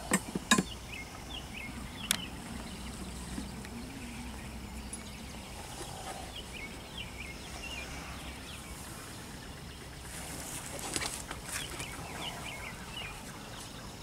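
Hive tool and hands working the wooden frames of a beehive: a few sharp clicks and knocks of wood in the first two seconds and another cluster of clicks and scrapes about eleven seconds in. Small birds chirp now and then in the background.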